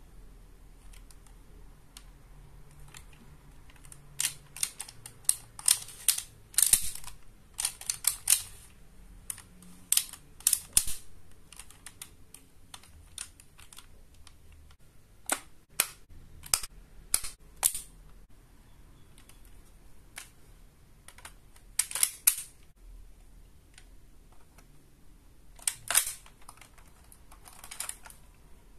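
Hard plastic toy belt (Bandai DX Desire Driver) clicking and clacking as it is handled and turned over, with sharp clicks coming in quick clusters and quieter gaps between.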